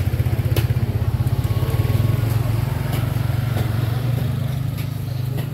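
Motorcycle engine running steadily, easing off a little near the end.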